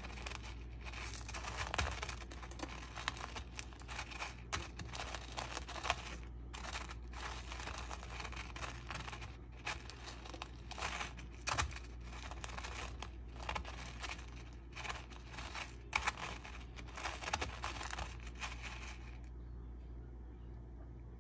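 Dry crisp rice cereal flakes crackling and crunching as a coated candy stick is rolled and pressed through them, in a dense run of small crackles and snaps. The crackling stops about nineteen seconds in, leaving only a low hum.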